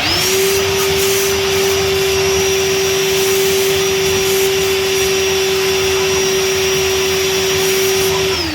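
An electric motor starts, spins up in a fraction of a second, and runs at a steady high whine over a rushing noise for about eight seconds. Its pitch then falls away as it shuts off.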